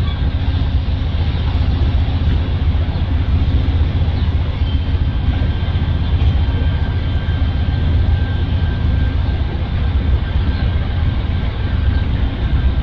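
Amtrak Superliner passenger train rolling slowly through the station, giving a steady low rumble. A faint thin whine joins from about five seconds in.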